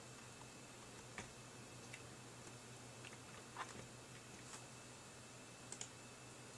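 Faint steady hum from a running computer with an XFX Pro 750W power supply, broken by a few soft clicks.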